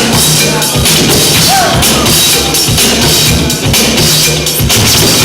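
Loud breakbeat music for a b-boy battle, with a steady drum-kit beat and heavy bass.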